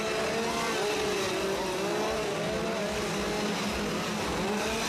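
Several chainsaws revving at once, their engine notes rising and falling over each other, with a steadier lower engine note running alongside from about a second and a half in.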